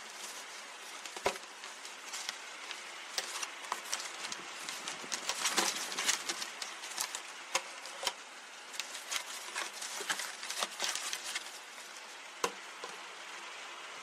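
Product packaging being opened and handled by hand: rustling and crinkling with many scattered sharp clicks and snaps, busiest in the middle.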